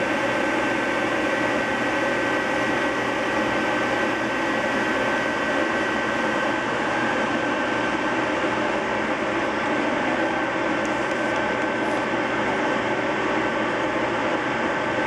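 Steady mechanical hum with a few thin steady whining tones over it, from a machine such as a motor or fan running without change.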